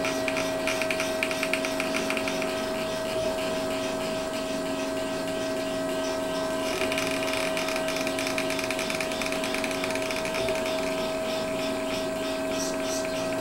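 3D printer running as its print head traces a part outline, the stepper motors giving a steady whine over a fast pulsing chatter. About seven seconds in, the chatter changes and becomes brighter as the head's moves change.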